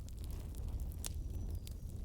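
Wood fire burning with a low steady rumble and scattered sharp crackles and pops, one louder pop about a second in.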